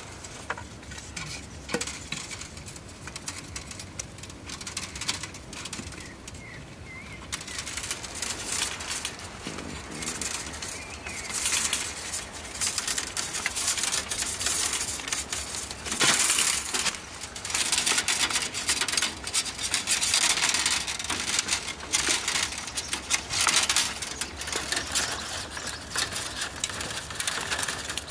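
Thin metal wire being handled and wound around a bamboo cane: scratchy rasping with small metallic clinks, faint at first and louder and busier from about seven seconds in.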